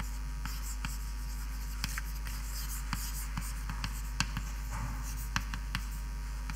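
Handwriting during a lecture pause: a scattered run of light taps and short scratches from the writing tool striking and moving across the writing surface.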